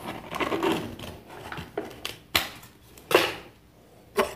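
Lid of an instant noodle cup peeled off with a rustling crinkle, followed by three short, sharp knocks of handling over a wooden board, the loudest about three seconds in.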